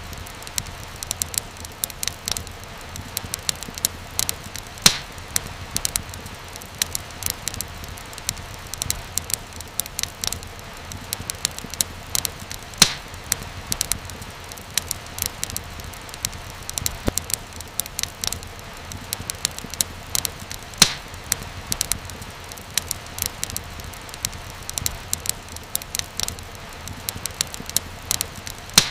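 Wood fire in a fireplace crackling steadily: dense small snaps and ticks over a low, even rush of flame. A few louder pops stand out, about eight seconds apart.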